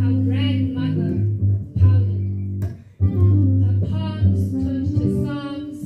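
Live poetry performance: a woman's voice delivers a poem at the microphone over a plucked upright double bass playing low held notes. The voice dips briefly about three seconds in.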